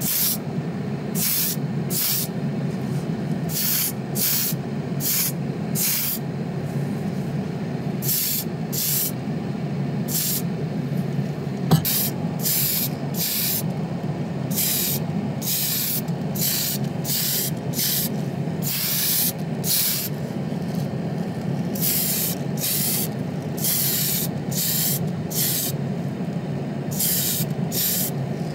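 Paint being sprayed in short bursts, about one a second, over a steady low hum.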